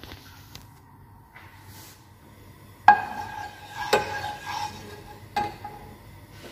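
Metal ladle knocking and scraping against a pot while stirring oil: three sharp, ringing clinks, the first about three seconds in, with a rattle of metal between the last two.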